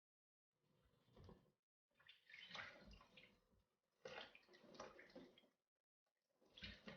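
Water splashing and sloshing in four short bursts as tomatoes and peppers are washed by hand in a bowl of water.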